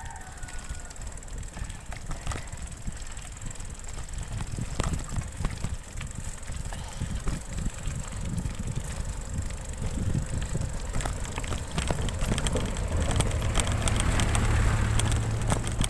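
Mountain bike rattling and knocking over a rocky trail, with wind rumbling on the microphone; it grows louder toward the end, where a low steady hum joins in.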